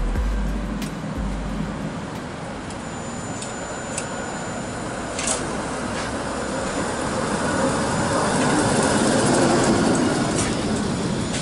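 Historic Konstal tram running along the rails, its rumble swelling as it draws alongside, with a few sharp clicks and a thin high whine at times.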